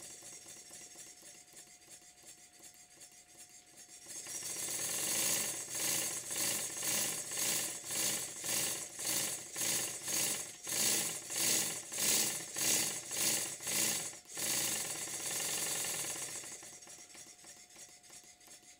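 Stuart Double 10V twin-cylinder vertical model steam engine running on compressed air, giving rhythmic hissing exhaust beats. It is faint at first, comes up about four seconds in to an even run of beats, then fades out over the last few seconds.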